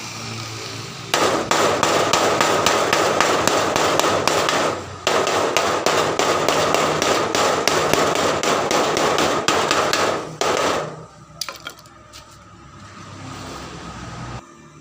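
Izumi 130 gasless MIG welder's arc crackling steadily as it runs a weld with flux-core wire. It starts about a second in, breaks off briefly near the middle, and stops about ten seconds in, followed by a few faint clicks.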